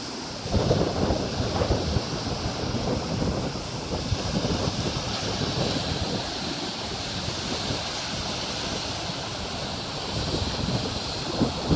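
Sea waves washing onto a beach, a continuous surf noise with wind buffeting the microphone. It surges louder about half a second in and again near the end.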